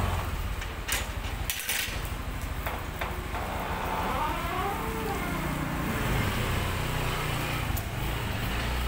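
Motor scooter running, a steady low rumble, with a few sharp clicks and knocks about one to two seconds in.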